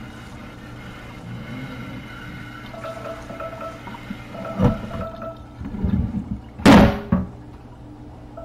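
Kitchen faucet running into a stainless-steel sink, then shut off, followed by a few knocks and one loud clatter as a bamboo cutting board is handled and set down.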